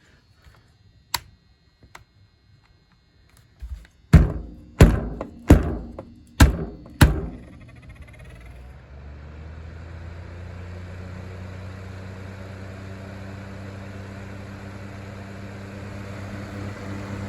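Five heavy thunks a little under a second apart. From about eight seconds in, a small box fan motor runs with a steady hum and a rush of air from the blade.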